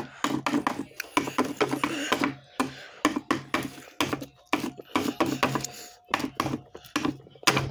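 Close-up chewing of gummy candy: irregular mouth clicks and smacks, with a faint low hum that comes and goes.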